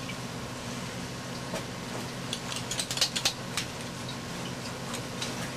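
A run of sharp clicks and clatters from gear being picked up and handled, bunched from about two to three and a half seconds in, over a steady low hum.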